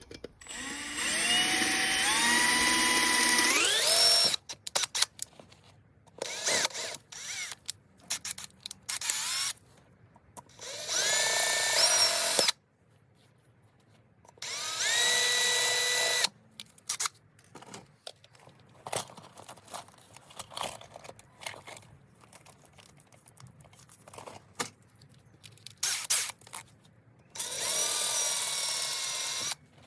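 Electric drill with a 3 mm bit drilling out the remains of rivets on a Vance & Hines exhaust silencer sleeve, in four bursts. Each burst starts with a rising whine as the motor spins up, then holds. Between bursts there are clicks and knocks of handling.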